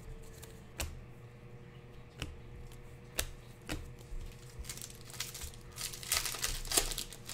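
Panini Prizm trading cards being flipped through and handled by hand: scattered light clicks and snaps of card stock, thickening into a quick run of them near the end.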